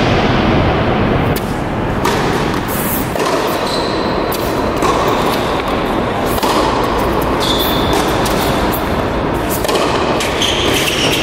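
Tennis rally on an indoor hard court: sharp racket strikes on the ball, with short high shoe squeaks a few times, over a steady noisy background.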